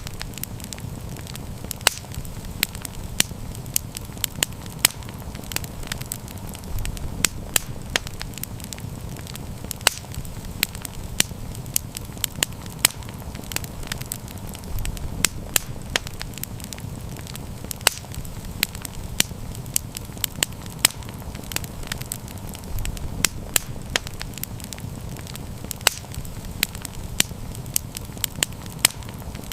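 Wood campfire burning with irregular sharp crackles and pops, several a second, over a steady low rumble of flame.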